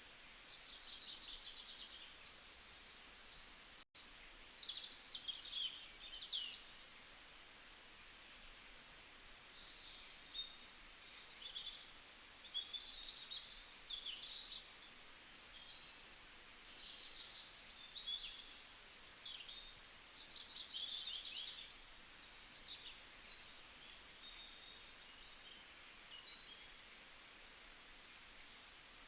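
Many small birds chirping and twittering over a faint steady hiss, with a brief dropout about four seconds in.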